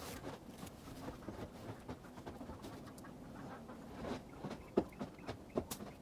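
Peat moss and perlite potting mix poured from a plastic tub and then spread by hand over a garden bed: faint rustling and scraping with scattered light ticks, a few sharper ones in the second half.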